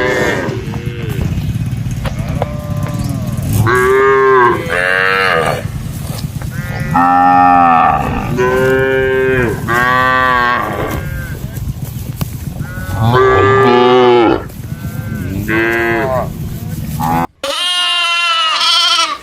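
Cattle mooing: a run of long calls, one after another and sometimes overlapping, over a steady low rumble. Near the end the sound cuts off abruptly and a higher bleating call follows, typical of a goat.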